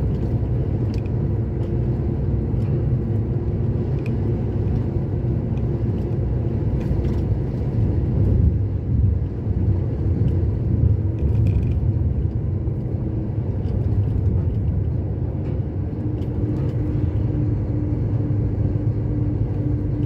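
Steady engine and road rumble heard from inside a moving vehicle's cab on the highway, with a faint engine hum that settles slightly lower in pitch about three-quarters of the way through.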